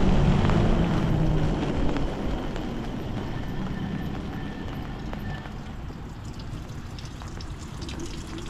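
A pickup truck drives past on the wet road in the first two seconds, its tone dropping as it goes by. Then a steady hiss of rain and wet pavement grows quieter as the e-bike slows to a stop, with light taps of raindrops.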